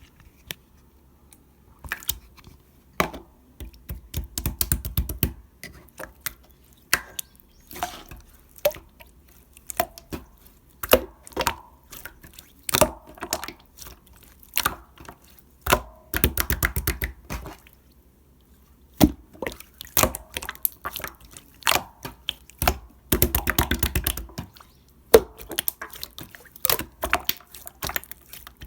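Bouncy, jelly-like slime being squeezed and poked by hand close to the microphone, making irregular wet clicks, pops and crackles with denser squishing bursts now and then.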